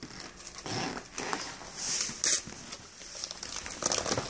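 Tissue paper rustling and crinkling as it is pulled by hand from a gift bag, in irregular bursts, loudest about two seconds in.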